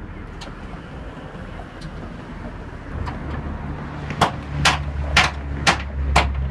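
The 1953 Chevrolet 210's engine comes on about halfway through and runs at a steady low idle. Five sharp pops sound over it, roughly half a second apart.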